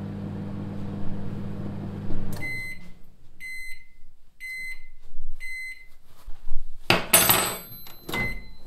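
Low-powered microwave oven running with a steady hum that stops about two seconds in, followed by four beeps about a second apart signalling the end of the heating cycle. Near the end the door is unlatched and opened with loud clunks.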